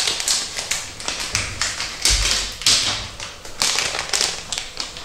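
Plastic sweet packaging being handled and torn open, crinkling and rustling in repeated bursts with many small sharp clicks.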